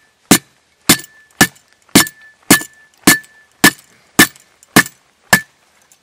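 The sharpened side edge of a cheap survival spade is chopping a thin branch against a log. It strikes about twice a second, each blow a sharp knock with a short metallic ring. The edge is too dull to cut through: it only dents and scrapes the bark.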